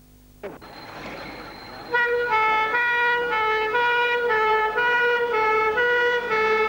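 Fire engine's two-tone horns sounding a steady hi-lo alternation, starting about two seconds in, as the appliance pulls out of the station, with its engine note rising faintly underneath near the end. Before the horns there is a single click and a faint hiss.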